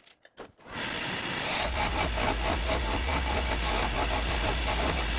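Wood lathe starting up and running steadily, with a parting tool cutting into the spinning mahogany blank: a continuous rasping scrape over the motor's low hum.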